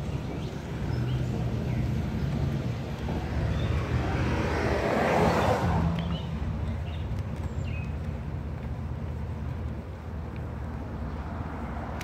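Street ambience with a steady low rumble, and a car passing on the road alongside, its tyre and engine noise swelling to a peak about five seconds in and then falling away.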